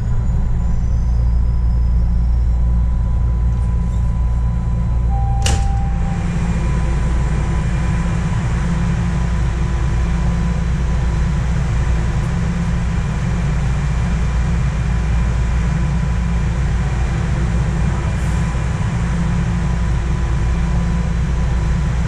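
Steady low rumble inside a Toronto subway car, the train's running and ventilation noise. About five seconds in there is a short beep and a sharp click.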